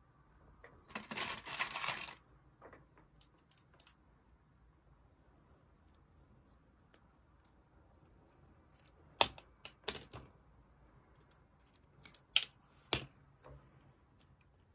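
Small parts of an AAP-01 pistol power brake handled and worked with a small tool: a brief scraping rustle about a second in, then scattered sharp clicks and taps of hard parts, the loudest clustered in the last few seconds.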